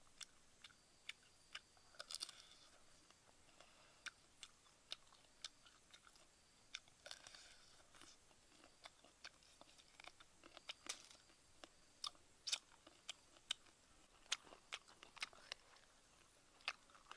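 Crisp crunching and chewing of roasted insects: irregular sharp crunches, sometimes in quick clusters, between softer chewing.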